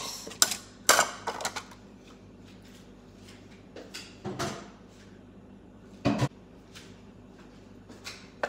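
Hard plastic parts of a citrus juicer knocking and clacking as they are handled and fitted together. There are several sharp knocks in the first second and a half, then single knocks about four and six seconds in.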